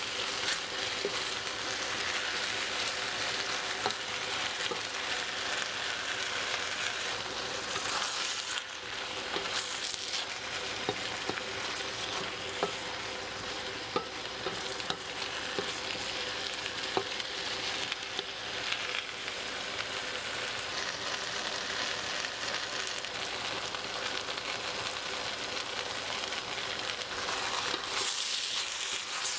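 Cabbage, meatball slices and vegetables sizzling in a metal wok while a spatula stirs them, scraping and clicking against the pan. The sizzle flares up briefly about eight seconds in and again near the end.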